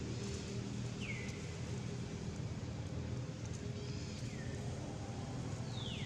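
Baby long-tailed macaque crying: three short, high-pitched calls that each slide downward, about a second in, at about four seconds and near the end, over a steady low background hum.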